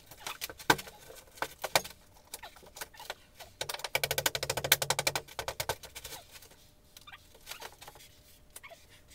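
Drywall demolition debris being handled: scattered knocks and scrapes, then a rapid rattling run of clicks lasting about two seconds, starting about four seconds in.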